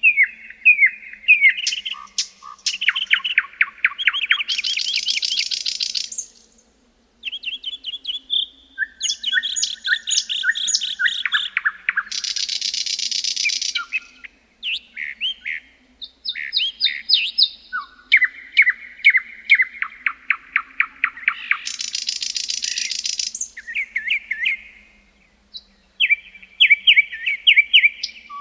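A songbird singing long, varied songs of rapid chirps and trills. About three of the songs end in a dense, buzzy rattle, and there are short pauses between songs.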